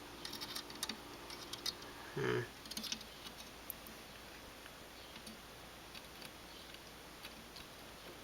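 Small plastic clicks and taps as the removed trunk-light housing and its bulb are handled and worked at by hand, clustered in the first three seconds, with a brief murmur from the person a little after two seconds. Afterwards there is only faint background.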